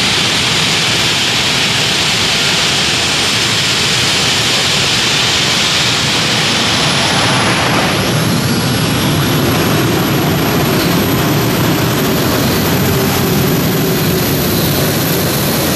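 Isotov TV3-117M helicopter turboshaft engines of a modified pulling tractor running loud with a jet-like rush. About halfway through, a high whine climbs over a couple of seconds and then holds steady as the tractor pulls down the track.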